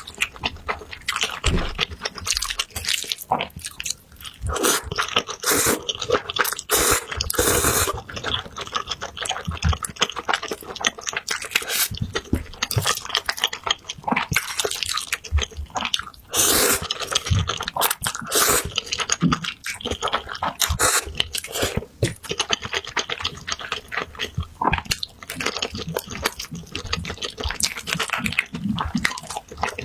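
Close-miked chewing and crunching of food, a dense run of crackly, clicking bites throughout.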